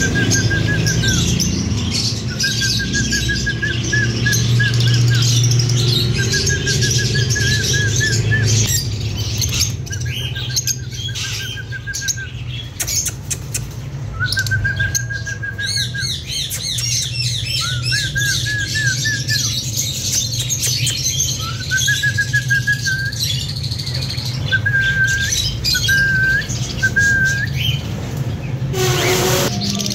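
Lovebirds chirping and squawking, with repeated short warbling trills of a second or two each and many sharp high chirps in between. A steady low hum runs underneath, and a brief rush of noise comes near the end.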